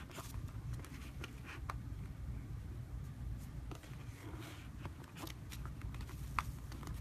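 Slime being squeezed and poked by hand, giving irregular small sticky clicks and crackles over a steady low hum.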